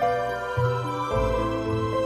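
Background music: a slow, gentle instrumental piece of sustained notes over a low bass, changing chord about every half second.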